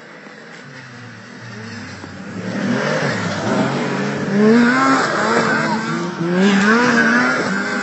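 Several racing snowmobiles' engines approaching and passing, their pitch rising and falling with the throttle. The sound builds from about two seconds in and is loudest around the middle and again near the end.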